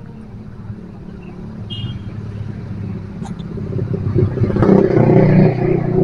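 Traffic noise with a motor vehicle's engine approaching and passing close by, growing louder about four seconds in and loudest near the end.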